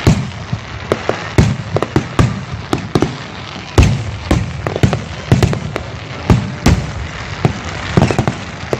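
Aerial fireworks bursting in quick irregular succession, several booms a second, the loudest about four seconds in, over a continuous crackle.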